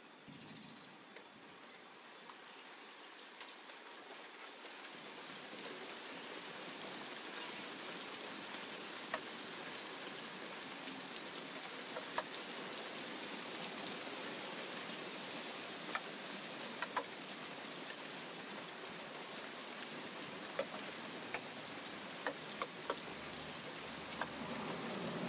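Curry simmering in a pan: a steady bubbling hiss with scattered sharp pops as bubbles burst. It grows louder over the first few seconds.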